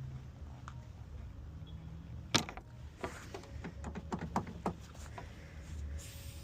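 Lockout tools working against a car door: one sharp click about two seconds in, then a quick run of short clicks and taps, over a steady low hum.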